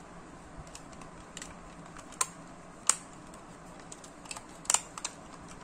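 Hard plastic clicks and taps from a pocket desk calculator's plastic back cover as it is pressed and snapped shut. There are a few separate sharp clicks, with a quick double click near the end.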